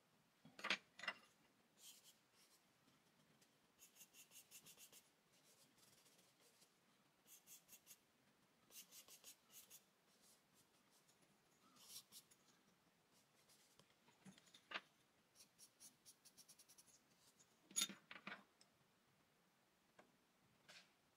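Charcoal pencil scratching on drawing paper in quick bursts of short hatching strokes, several strokes a second, with a sharper tap about a second in and another late on.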